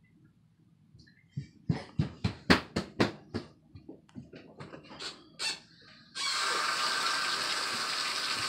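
A quick run of about a dozen sharp slaps, small hands smacking a hard surface, then water from a bathtub tap running steadily into the tub, starting suddenly about six seconds in.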